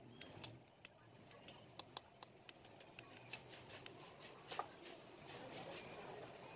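Faint, irregular light clicks and taps of small metal engine parts and tools being handled during assembly, with one sharper click about four and a half seconds in.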